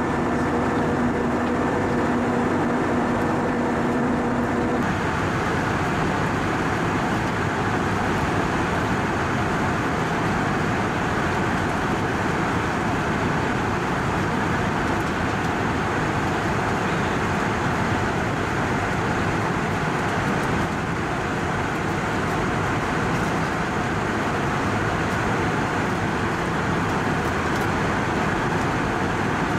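Airbus A320 cabin noise in cruise: a steady rush of airflow and engine noise. A steady hum rides on it for the first few seconds and stops abruptly about five seconds in.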